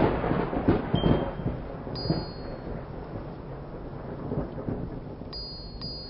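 Thunder rumbling over steady rain, loudest at the start and fading away.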